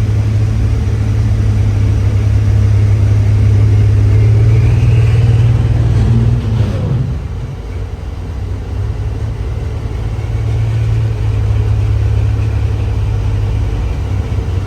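A Limited Pro Stock pulling tractor's engine running hard with a loud, steady drone. About six and a half seconds in it drops off with a falling whine, then keeps running.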